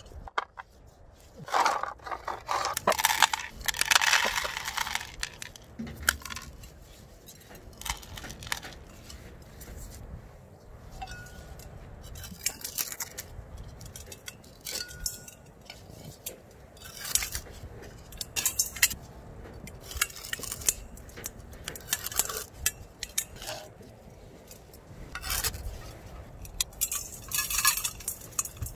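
Irregular clinks, knocks and scrapes of a terracotta flowerpot against a stainless-steel bowl, with a metal blade scraping around the inside wall of the pot to loosen the root ball. Near the end the pot is tipped and potting soil spills into the steel bowl.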